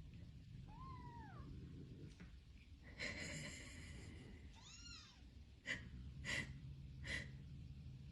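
Kitten mewing softly a few times, short cries that rise and fall in pitch, then three short sharp sounds about two-thirds of a second apart near the end.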